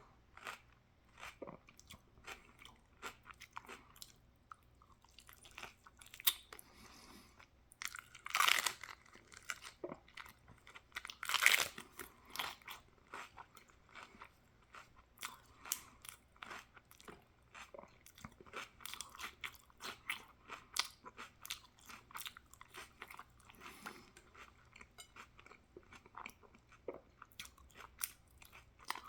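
A person chewing and crunching crunchy food with many quick wet mouth clicks, with two louder crunching bites about eight and eleven seconds in.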